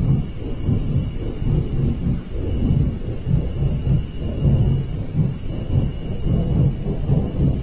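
Loud, deep, continuous rumbling that swells and fades every second or so, with a faint steady high tone above it: one of the unexplained 'mystery sounds' of 2011, which the person recording likens to a giant flame.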